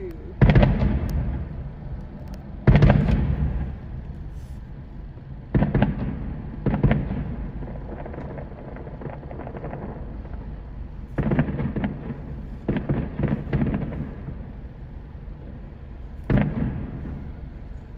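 Aerial fireworks shells bursting: booms a few seconds apart, each followed by a rumbling tail, with a quicker run of bangs about eleven to fourteen seconds in.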